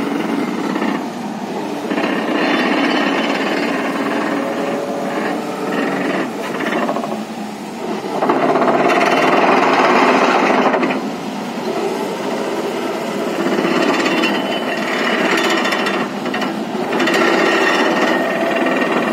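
Excavator-mounted hydraulic vibratory pile hammer driving a steel pile into sand: a continuous dense rattling buzz. It grows louder for a few seconds about halfway through, and again near the end.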